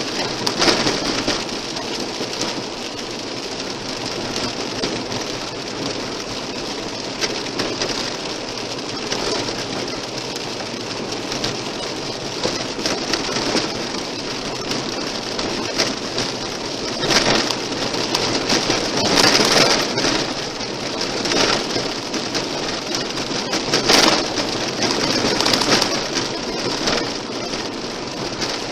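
Car tyres rolling over a gravel road, heard from inside the car: a steady crunching hiss dense with small stone clicks, and a few louder stone hits in the second half.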